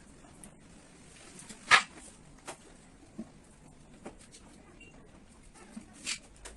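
Scattered sharp clicks and knocks of tools and parts while car-audio equipment is taken out of a speaker box. The loudest knock comes just under two seconds in, with smaller ones every second or so.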